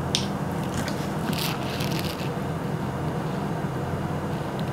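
Soy sauce poured from a bottle into a small glass bowl, a few faint splashy glugs, over a steady low hum.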